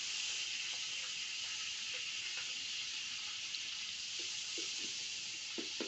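Chopped onions sizzling in hot cooking oil: a steady hiss that starts suddenly as they are scraped into the pot, with a few faint knocks from the wooden stirring spoon in the second half.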